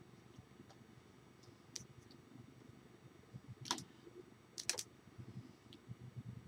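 Faint clicks and taps over low rustling from a person signing: hands and fingers striking and brushing together, and clothing shifting with the arm movements. There are a few sharp clicks, the loudest about three and a half and four and a half seconds in.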